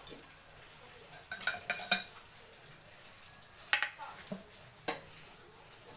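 Red chillies and other ingredients dropped by hand into an empty aluminium cooking pot, making light clinks and taps on the metal that ring briefly. A quick cluster of them comes about a second and a half in, and a few single taps follow later.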